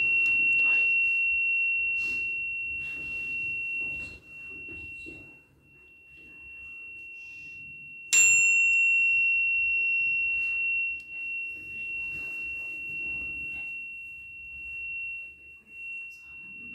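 A small metal chime struck and ringing with one high, clear tone that slowly fades. It is struck again about eight seconds in and rings out once more.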